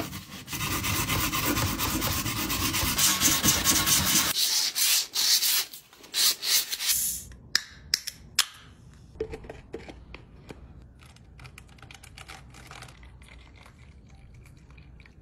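Sanding the paint off the side of an aluminium drink can by hand: fast, even rubbing strokes that stop about four seconds in, followed by softer scattered scrapes and clicks.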